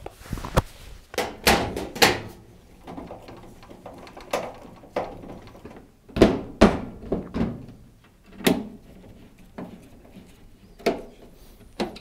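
Tumble dryer casing panels being refitted: about a dozen irregular knocks and thunks as the metal side panel and the top panel are set and pushed into place.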